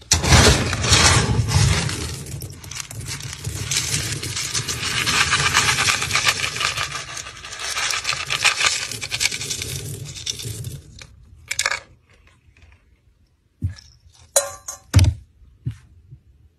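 Dry pet-food kibble rattling and clinking as a plastic scoop digs through it in a plastic container, a dense rattle lasting about eleven seconds. A few separate clinks follow near the end.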